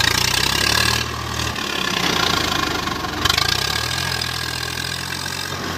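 A diesel tractor engine running steadily, its pitch shifting a little a couple of times.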